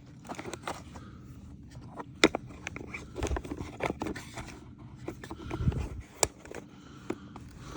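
Hands working a rubber drive belt off a Bissell PowerForce Helix vacuum's motor shaft and brush-roll housing: irregular scrapes, clicks and knocks of plastic parts, with a duller knock a little before six seconds in.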